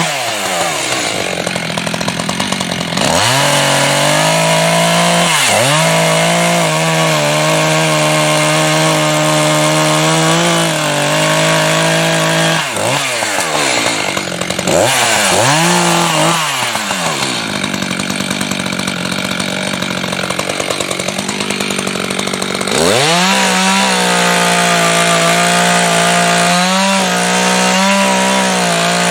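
Chainsaw running at high revs, cutting into a spruce trunk. Its pitch dips sharply and recovers several times as the chain bogs in the cut. Past the middle it runs slower for several seconds, then speeds back up near the end.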